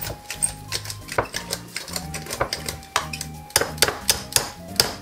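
Metal potato masher knocking and scraping against the bottom and sides of a stainless steel pot while mashing boiled potatoes, a quick run of irregular clanks. Background music plays underneath.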